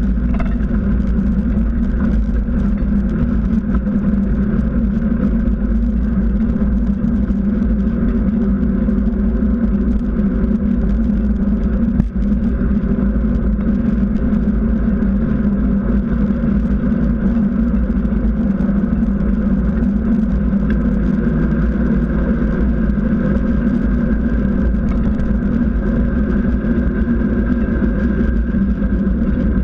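Knobby mountain-bike tyre humming steadily on asphalt while rolling, with wind rumbling on the bike-mounted camera's microphone. A single knock about twelve seconds in.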